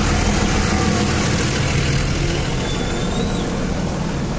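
Nilgiri Mountain Railway toy train running: a loud, steady noise with a low, even hum underneath.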